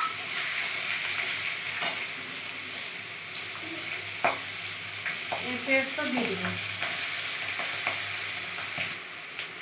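Whole spices, green chillies and sliced onions sizzling steadily in hot oil in an aluminium kadai, with a metal spatula stirring, scraping and clicking against the pan a few times.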